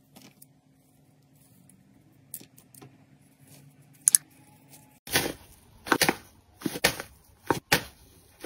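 A craft knife shaving flakes off a dry clay stick, with faint scrapes and small crackles. About five seconds in, louder crinkling of gold foil as fingers peel and press the foil wrapped around a ball, in a run of crackly strokes about two a second.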